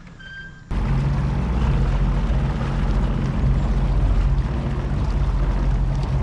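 Personal watercraft engine, the three-cylinder Rotax of a Sea-Doo GTX 170, running steadily at low speed with a low hum, under water and wind noise on the microphone. It cuts in abruptly just under a second in after a quieter moment.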